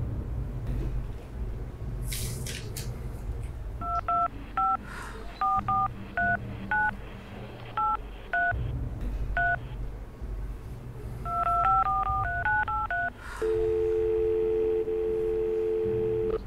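Telephone keypad touch tones as a number is dialed: a slow run of about ten beeps, a short pause, then a quicker run of beeps. After that, a steady two-note line tone holds for about three seconds.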